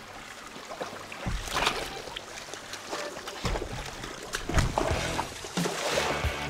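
Water splashing irregularly as a dog swims and a man wades through a shallow stream, over background music.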